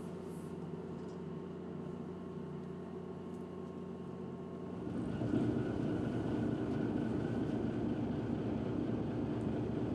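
Steady low drone of a large tour boat's engines, with a few steady hum tones in it. About five seconds in it turns louder and rougher.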